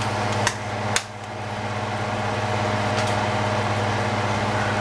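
Roux cooking in a stainless steel pan on an electric stove: a steady hum with a soft, even hiss. Two sharp clicks come about half a second apart in the first second.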